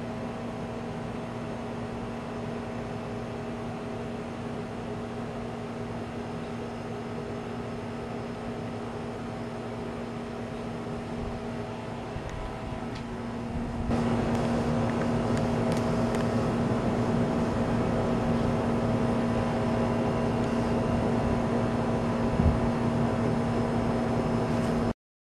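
Steady machine hum with several held tones, growing louder after a cut about 14 s in, with one brief low bump near the end.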